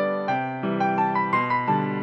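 Background music: a gentle piano melody, notes struck about three times a second and left to ring.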